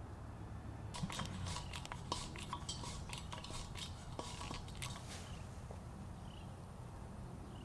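Brass propane tee adapter and its fittings clicking and clinking as they are handled and screwed by hand onto a propane cylinder's valve: a quick run of small metallic ticks that stops about five seconds in.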